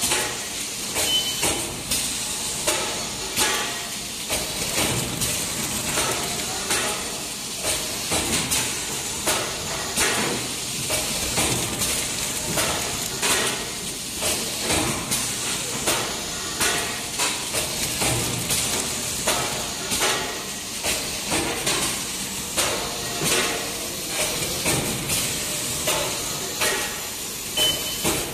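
GZP-150 servo flow-wrap packing machine running: a steady mechanical rattle and hiss with regular sharp clacks about once a second as its reciprocating end-seal jaws close on each pack.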